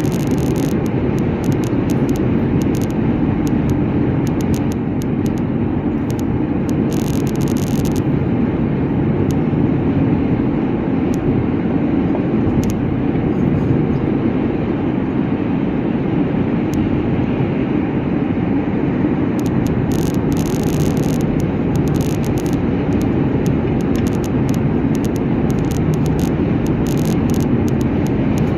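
Steady road and engine noise of a car driving at highway speed, with scattered short crackles and clicks coming and going.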